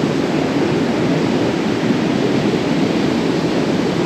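Steady rushing ambience of sea surf and wind on the open beach, even and unbroken, with no distinct events.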